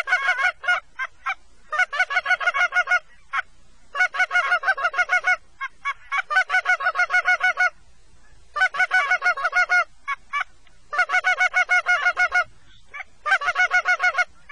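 Goose calls blown in rapid runs of honks and clucks, about six bursts each around a second long, to lure incoming geese into range.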